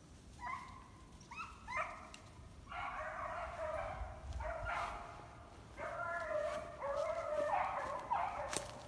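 A dog yipping and whining in a string of high-pitched calls, short and rising at first, then longer drawn-out ones from about three seconds in.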